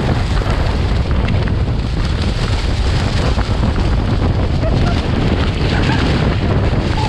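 Gale-force wind buffeting the camera microphone: a loud, steady rushing roar, heaviest in the low end, with no letup.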